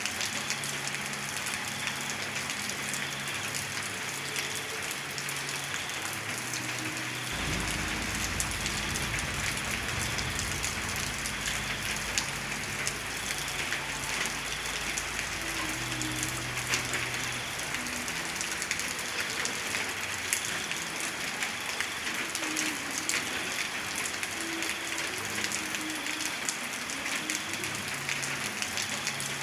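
Heavy rain falling steadily: a dense hiss of drops striking a surface, flecked with many fine drop ticks. A deep low rumble sits underneath from about seven seconds in and fades out about ten seconds later.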